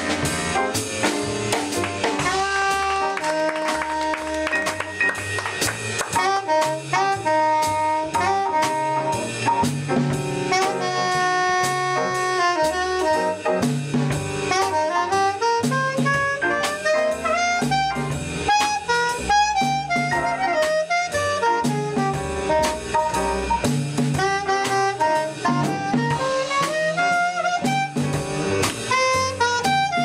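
Small jazz band playing a bebop blues: a saxophone solo that hands over to a clarinet solo, over piano, double bass and drum kit.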